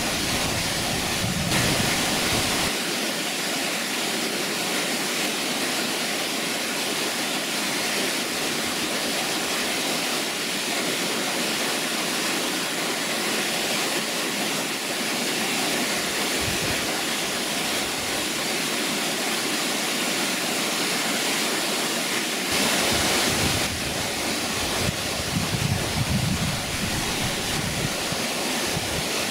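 Waterfall cascading down stepped rock ledges into a pool: a steady, unbroken rush of falling water.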